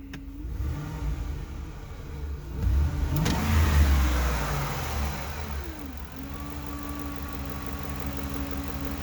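Vehicle engine revved up once and let fall back to idle, with a hum that rises in pitch with the revs and then holds steady at idle. The hum gets louder with acceleration; the owner has ruled out a vacuum leak and wonders whether it is the idle air control valve, though he cannot rule out a pulley.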